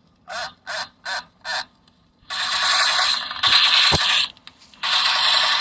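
Mechanical voice box of a battery-operated Yonezawa Atomic robot toy running: a short chopped phrase of four syllables, then long spells of scraping, creaking mechanism noise with a single knock about four seconds in.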